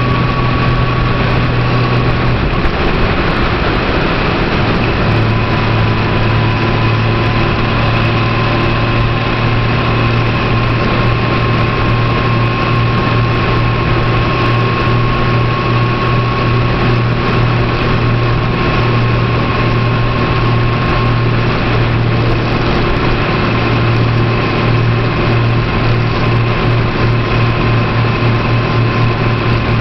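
Car driving along at steady speed, its engine drone and road noise heard from inside the cabin. The low drone eases off for a few seconds about two seconds in, then comes back.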